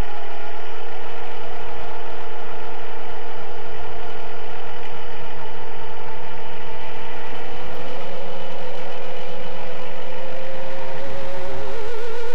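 FPV quadcopter's brushless motors and propellers whining steadily in forward flight. The pitch climbs a little about two-thirds of the way through and again near the end, as the throttle is raised.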